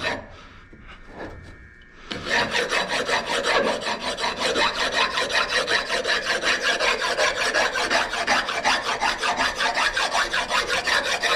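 Steel stone rasp scraped back and forth along the edge of a wet gray lithographic limestone, rounding off its rough edges and corners. After a brief lull it starts about two seconds in, then runs as fast, even rasping strokes, about four a second.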